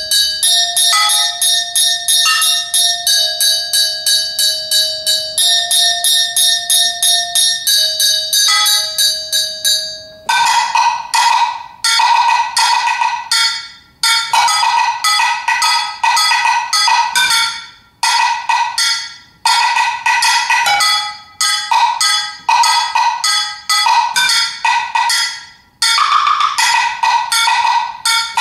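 Solo multiple percussion played with sticks: a fast, even stream of strokes on ringing, bell-like struck objects for the first ten seconds, then short runs of rapid strokes broken by brief pauses, with a higher ringing pitch.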